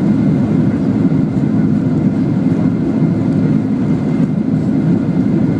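Steady, deep cabin drone of a Boeing 737 airliner taxiing, its jet engines and airflow heard from inside the passenger cabin.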